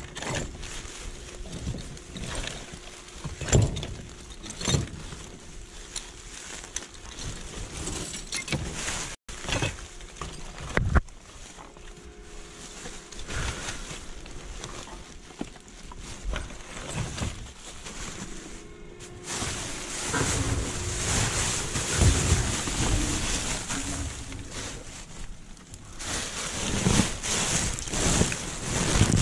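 Gloved hands rummaging through trash in a dumpster: plastic bags rustling and crinkling, with objects knocking and clattering now and then. The rustling gets louder and denser for several seconds in the second half.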